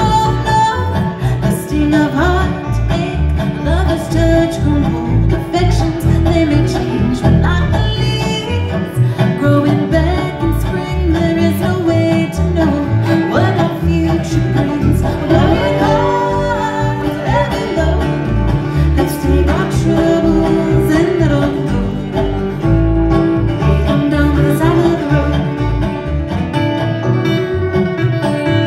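Bluegrass band playing a song: acoustic string instruments over a steady beat, with singing.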